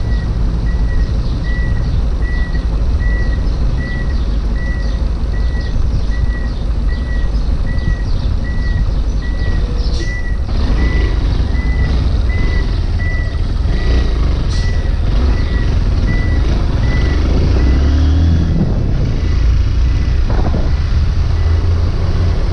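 Honda Bros 160's single-cylinder engine running on a ride, with a steady low rumble and road and wind noise, and no knocking. A short high beep repeats about twice a second and stops about three-quarters of the way through.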